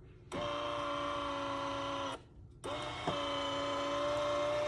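Café Affetto automatic espresso machine running its internal motor at the start of an espresso cycle: a steady whine in two stretches of about two seconds, with a brief stop between them.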